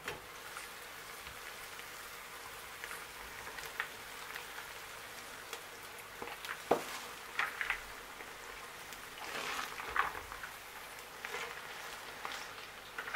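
Soft patter of a simmering pot with scattered light clicks and rustles as chopped water leaves are tipped from a bowl into it and pressed down by hand. A glass pot lid knocks once at the start.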